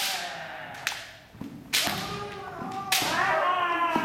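Bamboo shinai striking kendo armour with sharp cracks, three in all, each about a second apart, together with long drawn-out kiai shouts from the fencers; the longest shout starts about three seconds in.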